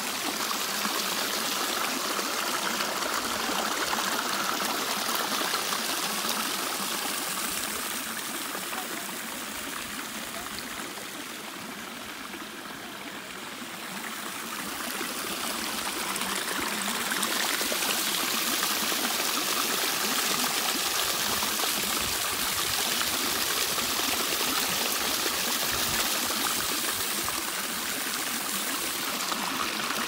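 Waterfall rushing: a steady hiss of falling water, softer for a few seconds near the middle before coming back up.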